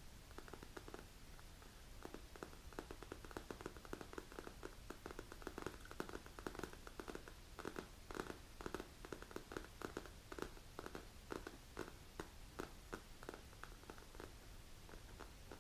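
Long polished natural fingernails tapping on a black leather manicure arm-rest cushion: many quick, irregular taps, faint, thickest through the middle of the stretch.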